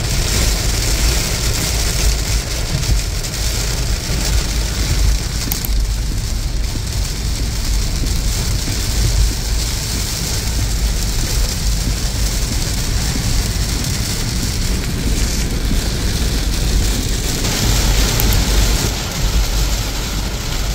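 Heavy rain hitting a car's roof and windshield, heard from inside the moving car, over a steady low road rumble.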